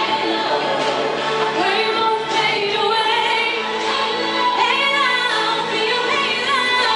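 Background music with a singing voice carrying a melody over steady accompaniment.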